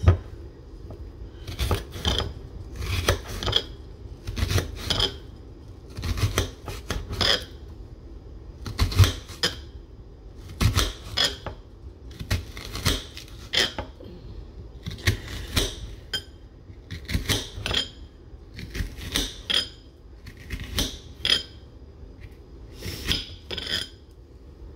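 A kitchen knife slicing through an onion, each cut ending in a sharp click as the blade strikes the ceramic plate beneath it, about one or two cuts a second in an uneven rhythm.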